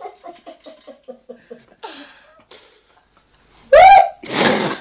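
A man laughing in a quick run of short "ha-ha" pulses, then after a brief lull a very loud, short yell near the end, followed by a harsh noisy burst.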